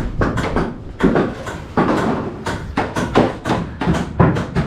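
A rapid, irregular run of sharp knocks, clatters and scrapes, several a second, from work on a building site.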